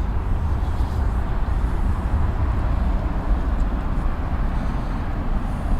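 Steady low outdoor rumble with a hiss, even throughout, with no distinct event.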